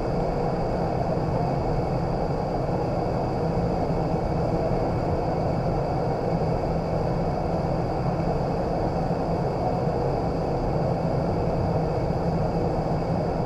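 Vertical wind tunnel running at flying speed: a steady, even rush of air with a low hum and a faint high steady tone underneath.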